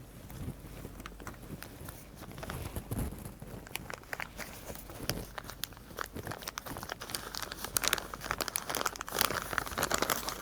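Plastic packaging crinkling and crackling as it is handled and opened, the crackling getting denser and louder in the last few seconds.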